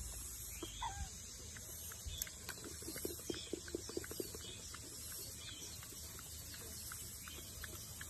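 Macaque chewing and smacking on fruit close to the microphone: a quick run of short wet clicks about three to four seconds in, with scattered softer ticks over a faint steady hiss. A single short squeak sounds near the start.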